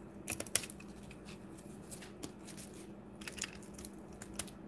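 Knife blade cutting through packing tape and foam wrapped around a trading card: scattered short scratchy cuts and crackles, the loudest about half a second in.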